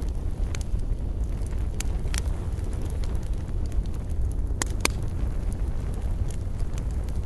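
Wood campfire crackling, with scattered sharp snaps and two louder pops close together about two-thirds of the way through, over a steady low rumble.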